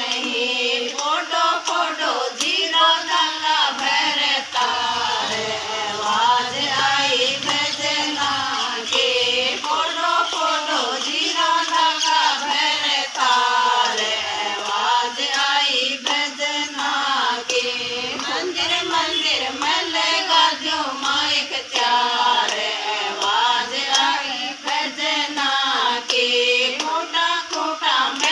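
A group of women singing a Hindi devotional bhajan together, the voices in unison.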